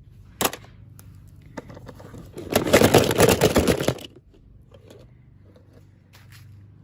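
Toy packaging being handled during unboxing: a sharp click, then about a second and a half of rapid, loud crackling clicks, then a few faint ticks.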